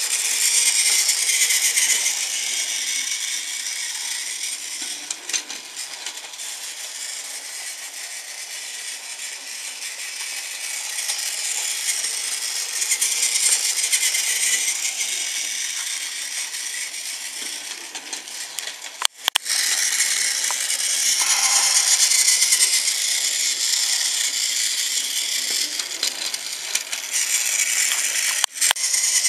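Battery-powered Tomy Thomas the Tank Engine toy train running on plastic track: a steady high whir of its small motor and gears with the rattle of its wheels, swelling and fading as it comes near and goes away. The sound breaks off briefly twice, about two-thirds through and near the end.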